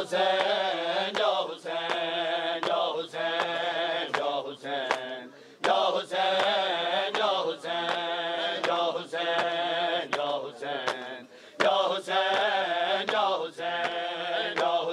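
Men chanting a noha, a Shia lament, in repeated phrases with short breaks between them. Sharp, regular slaps keep the beat throughout; these are the hand-on-chest strikes of matam.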